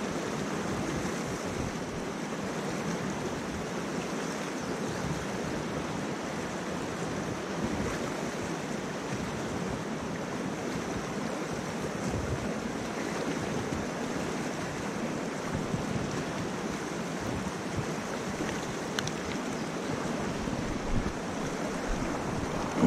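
Rapids of a rocky mountain trout stream rushing steadily, with a short splash near the end as a rainbow trout is netted.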